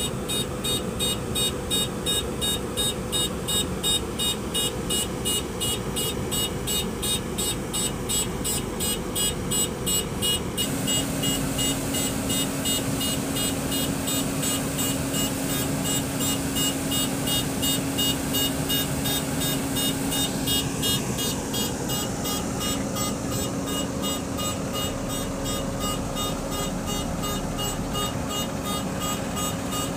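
Heavy diesel road machinery running, a tipper truck and an asphalt paver, with an even, rapid pulsing throughout. About ten seconds in the sound changes abruptly and a steady engine drone comes in.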